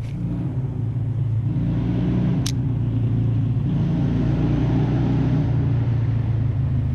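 Steady low rumble with a hum, and one sharp click about two and a half seconds in.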